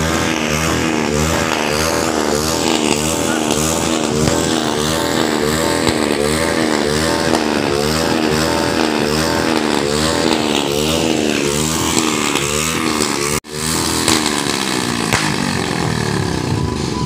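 Motorcycle engine revved over and over, the throttle blipped about twice a second, with the revs falling away near the end of the run. After a brief break about three-quarters of the way through, engine noise carries on.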